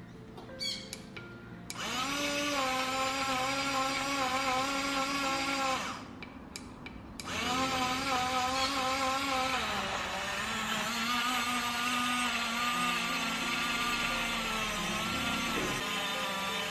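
Small motor of a rechargeable portable personal blender whining as it spins its blade through tomato and water. It starts with a couple of small clicks and a rising whine, cuts out after about four seconds, then starts again a second later and runs on, its pitch wavering and dipping under the load. This is a unit that runs only when held tilted and cuts out erratically.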